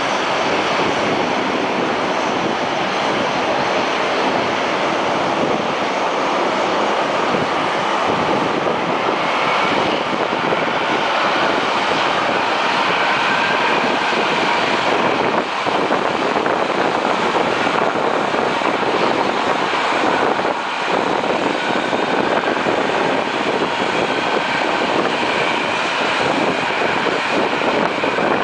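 Boeing 767-300's twin turbofan jet engines at takeoff power: a loud, steady jet rumble with a faint high whine from the fans.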